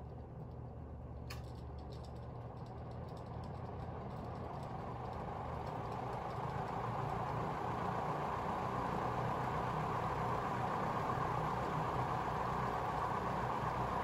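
SMC D4W36 36-inch ceiling fan with a 12-pole motor, running on its freshly replaced bearings under a low steady motor hum. A single click comes about a second in, then the rush of air from the blades builds steadily for several seconds as the fan speeds up, and holds.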